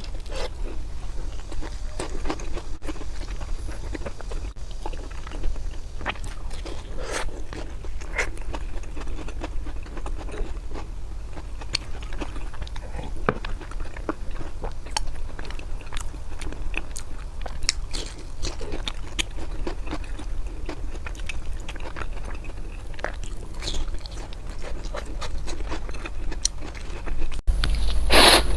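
Close-miked chewing and biting of food, with irregular crunches and small mouth clicks; the bites get louder near the end.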